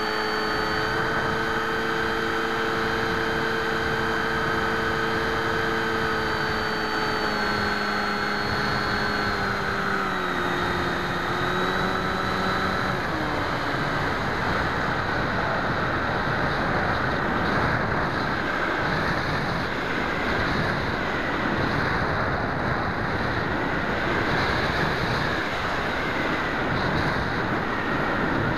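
FX61 flying wing's electric motor and propeller whine, stepping down in pitch a few times as the throttle is cut back and dying away about 13 seconds in. From then on only a steady wind rush over the airframe and microphone is left as the wing glides in on its landing approach.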